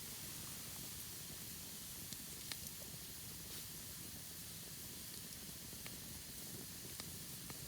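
Wood campfire burning with a steady hiss and a few sharp crackling pops from the burning wood.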